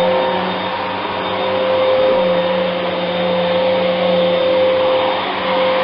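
Vacuum cleaner (hoover) running steadily, its motor giving a constant hum over a rushing airflow noise, swelling and easing a little in loudness.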